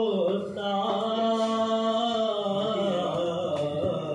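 A man singing a naat, an Islamic devotional poem, into a microphone. He holds long, drawn-out notes with slow bends in pitch, and only his voice can be heard, with no instruments.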